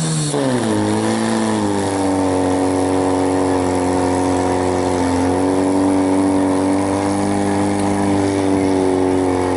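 Portable fire pump engine revving up in the first couple of seconds and then held steady at high revs, pushing water through the attack hoses to the nozzles.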